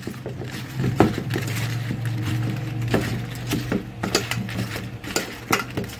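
Pieces of cut eggplant being tossed and rubbed by hand in a stainless steel bowl, with irregular knocks and clicks against the metal, the loudest about one and three seconds in. A low steady hum runs underneath.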